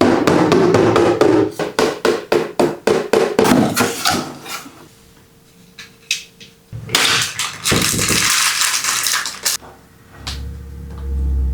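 Packaging being handled and opened: a rapid run of sharp crackles and clicks for about four seconds, then a dense rustle like plastic wrap or cardboard being pulled, and a low rumble near the end.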